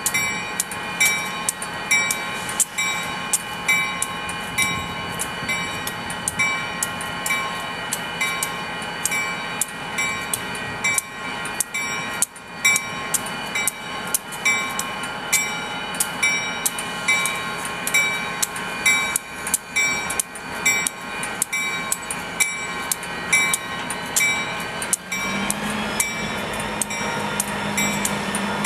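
Railroad grade-crossing bell ringing steadily, about twice a second, over idling Union Pacific diesel locomotives. Near the end a locomotive engine throttles up with a deeper steady drone as the units start to move.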